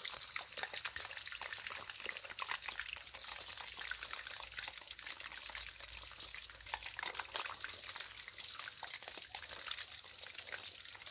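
Whole marinated quails deep-frying in hot oil in a steel wok: a steady, dense sizzle full of small crackles and pops.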